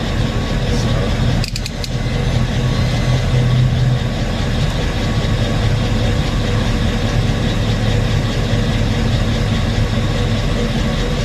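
An engine idling steadily with a low drone, with a few sharp clicks and a brief dip about a second and a half in.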